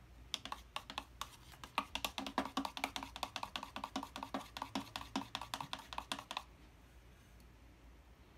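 Plaster of Paris and water being stirred in a cup with a silverware utensil: rapid clicking and knocking of the utensil against the cup, several strokes a second. The stirring stops about six seconds in.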